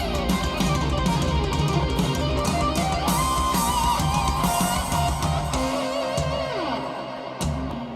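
Rock song with electric guitar and drums played back through a pair of hi-fi bookshelf speakers driven by a Marantz PM7000N amplifier. The drums and bass drop away about six seconds in, leaving the guitar, and the music gets a little quieter.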